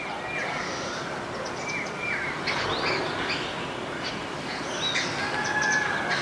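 Several wild birds calling together: a busy mix of short chirps and whistles, with a few clear whistled notes that drop in pitch and a longer held whistle near the end, over a steady background hiss.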